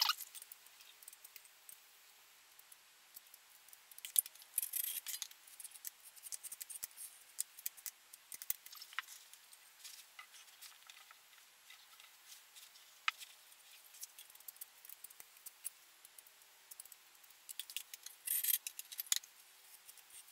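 Faint scattered clicks and taps of ceramic tiles and tools being handled, with two short scraping passes, about four seconds in and again near the end, as a putty knife spreads tile adhesive.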